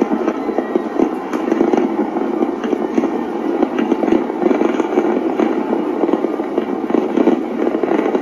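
A city-wide barrage of New Year's midnight fireworks: a dense, steady wash of many overlapping pops and crackles with no single bang standing out.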